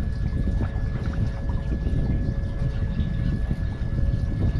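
Wind buffeting the microphone on an open boat: a loud, uneven low rumble, with a faint steady whine underneath.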